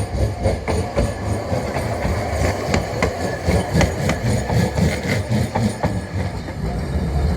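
Train rolling over the level crossing: a steady low rumble, with sharp wheel clicks over the rail joints clustered through the middle.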